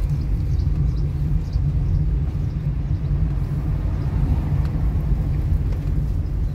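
Steady low rumble of a car being driven: engine and road noise heard from inside the cabin.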